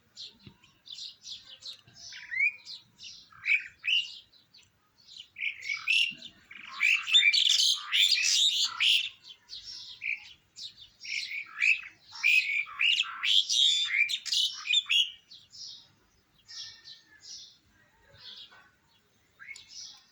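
A bird chirping and squawking in quick runs of short, high calls, busiest and loudest through the middle and thinning out toward the end.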